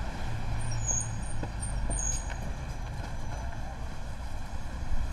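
Steady city road-traffic rumble, with a few faint high chirps about one to two seconds in.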